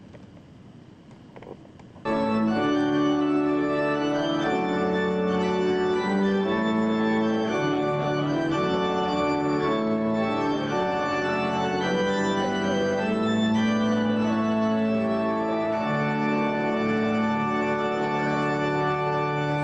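Church organ playing a slow piece of held chords that change every second or so. It starts abruptly about two seconds in, after a quiet room.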